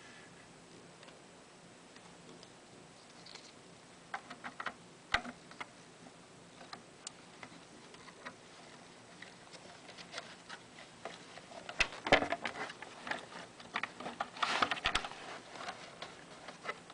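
Hands working with small hardware: scattered clicks, taps and light rattles of plastic and metal parts, busiest around twelve and fifteen seconds in.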